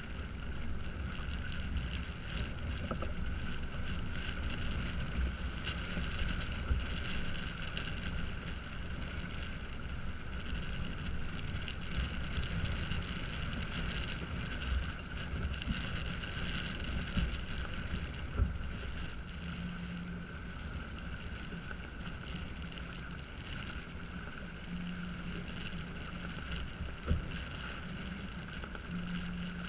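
Wind buffeting the microphone over the rush of water along the hull of a small sailing yacht under sail, steady throughout, with a few faint knocks.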